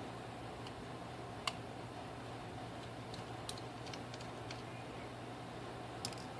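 A few light, sharp clicks and ticks of small tools and parts being handled while a Nokia Lumia 928 phone is taken apart: one about a second and a half in, a scattered run of them a little later, and another near the end. A steady low hum runs underneath.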